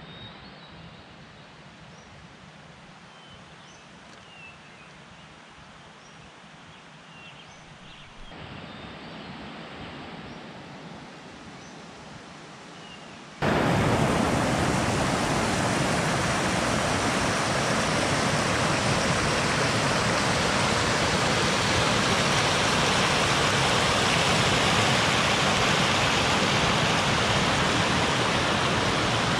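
Quiet outdoor ambience with a few faint high chirps, then an abrupt cut about halfway through to a mountain creek rushing, loud and steady.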